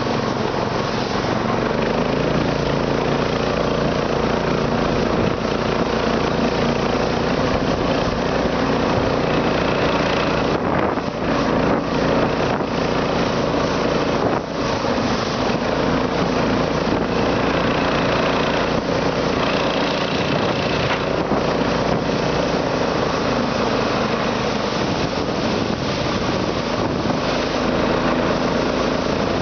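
Internal combustion engine running steadily, an engine the owner says has a knock in it.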